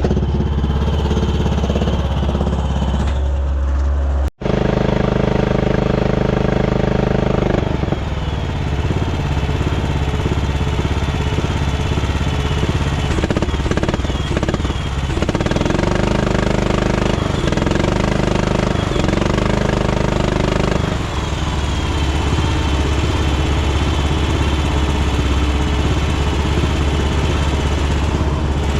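A farm vehicle's engine running steadily, with abrupt changes in its sound at several points where clips are cut together.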